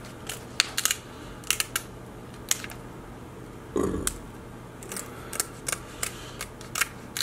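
Kitchen shears snipping and cracking through the shell of cooked king crab legs: a scattered series of short, sharp clicks and crunches, with one louder, duller sound about four seconds in.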